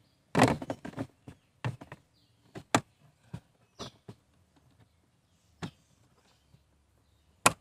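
Plastic cabin filter cover of a Kia Cerato/Forte K3 being pushed back into its housing behind the glovebox: a quick flurry of clicks and knocks about half a second in, then single sharp clicks every second or so as it is pressed home, with a loud click near the end.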